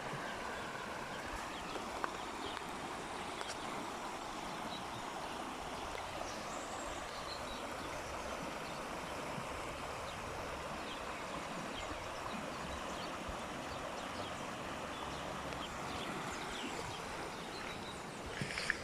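River water flowing, a steady even rush of moving water.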